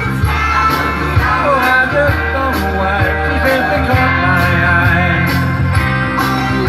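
A man singing a 1960s pop-rock song over a backing track with a steady drum beat, bass and guitar.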